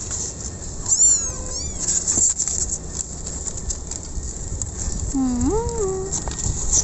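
Kittens mewing: a few short, high-pitched mews about a second in, then a longer, lower meow that rises in pitch near the end.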